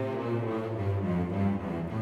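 Background music of low held notes, the bass line shifting to a new note about a second in.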